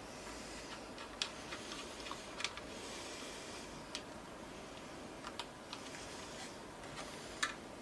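Irregular light clicks and taps of small parts and tools being handled inside an opened desktop PC case, about a dozen over several seconds, over a faint steady hiss.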